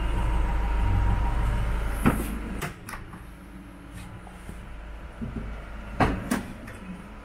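Rear barn doors of a Volkswagen van being unlatched and opened: a sharp latch click about two seconds in, a couple of quicker clicks, then two more knocks near the end. A low rumble under the first couple of seconds stops as the doors open.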